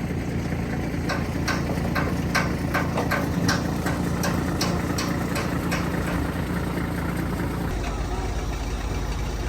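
Vehicle engine idling steadily, with a series of sharp clicks about twice a second for several seconds; near the end the engine note drops to a lower hum.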